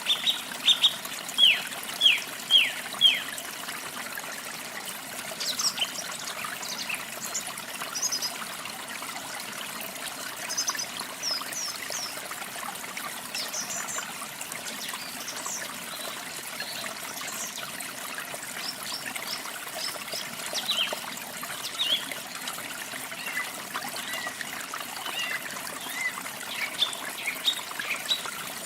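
Small songbirds chirping over a steady trickle of running water. A quick series of loud downward-sliding chirps comes in the first few seconds, then scattered, higher, thinner chirps through the rest.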